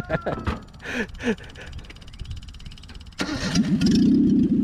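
A 1979 Chevrolet LUV's four-cylinder engine, fed by an aftermarket carburetor and a jumper-wired electric fuel pump, starts up about three seconds in and keeps running steadily and loudly.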